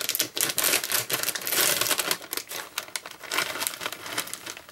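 Crinkly foil-lined plastic snack bag crackling as it is handled and pulled open. The dense crackle is loudest about halfway through and thins out near the end.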